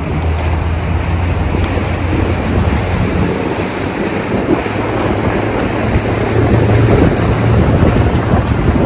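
Motorboat under way: a steady low engine drone under wind buffeting the microphone and water rushing past the hull. The engine note rises a little and gets louder about halfway through.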